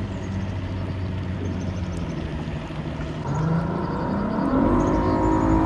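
Motorboat engine running at speed as the boat approaches, rising in pitch and getting louder from about three seconds in.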